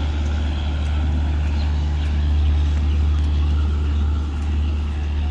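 Diesel-hauled passenger train pulling away and receding along the track, a steady low rumble.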